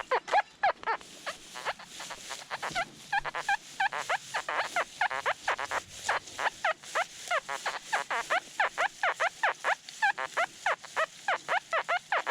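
Nokta Makro metal detector chattering in full-tones mode: a rapid, unbroken run of short warbling tone chirps, several a second, as the coil sweeps iron-filled, mineralized hot soil. It is set too deep for the ground, so it keeps sounding off.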